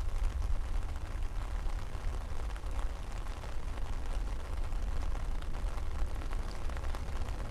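Boeing 757-200's twin jet engines at takeoff thrust heard from afar: a steady, crackling low rumble as the airliner lifts off and climbs away.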